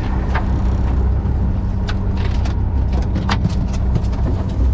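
Fishing boat's engine running with a steady low rumble and hum, with a few short sharp ticks scattered through it.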